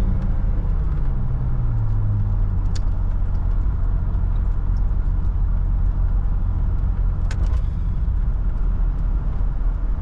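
Chevrolet S10 Blazer's 4.3-litre V6 heard from inside the cab while driving: the engine note falls over the first couple of seconds as the revs drop from about 3,500 to 2,000 rpm, then settles into a steady cruising drone with road noise. Two short clicks, about three and seven seconds in.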